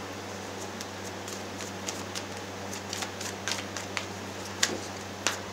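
Tarot cards being handled and shuffled by hand: scattered light, irregular clicks and flicks of card stock, over a steady low electrical hum.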